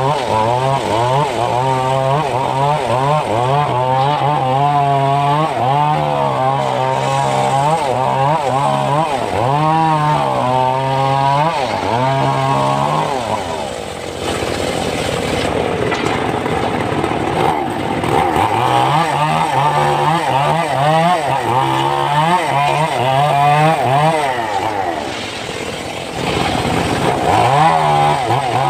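Homemade circular sawmill ripping a short log into boards: the blade runs steadily under load, its pitch wavering up and down as the wood is pushed through. It eases briefly about halfway through and again near the end.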